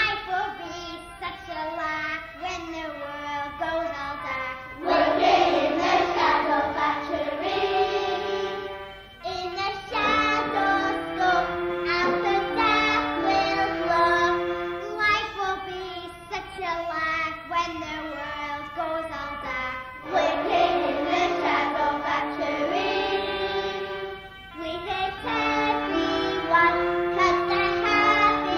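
Music with children singing a melody, running on without a break.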